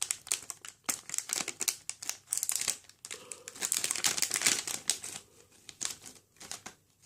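A toy blind bag's wrapper crinkling and crackling as it is torn open by hand, a quick run of crackles that thins out near the end.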